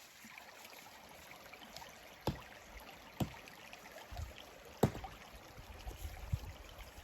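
A creek running steadily, with three sharp knocks about a second apart and a few low thumps from logs and sticks being handled in the stream.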